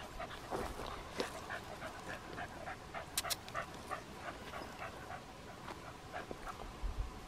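An animal panting rapidly and evenly, about four breaths a second, with a few sharp clicks about a second in and twice just after the third second.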